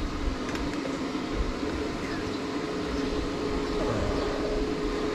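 A steady low machine hum over an even hiss, holding level without a break.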